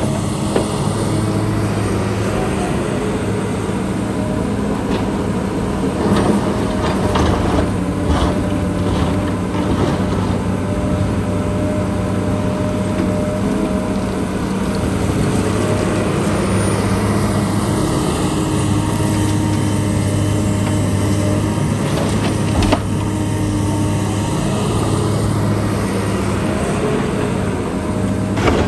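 Engine of heavy construction machinery running steadily, with a few sharp knocks, mostly clustered around a quarter of the way through and once more near the end.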